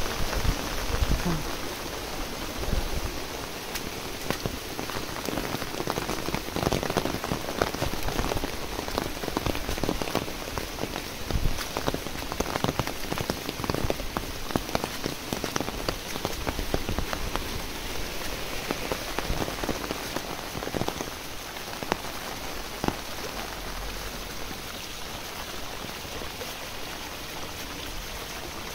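Heavy rain falling on leaves and wet ground: a steady hiss dotted with many sharp, close drop hits, which thin out and ease a little after about twenty seconds.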